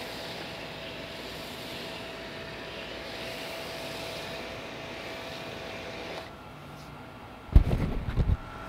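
SunJoe SPX-9009-PRO electric pressure washer spraying through a foam cannon: a steady hiss of spray over a faint motor hum that stops about six seconds in. Near the end, a quick run of loud low thumps.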